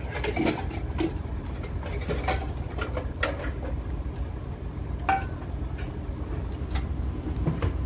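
Scattered clinks and knocks of cooking utensils and kitchen gear being handled, some with a brief metallic ring, over a steady low rumble.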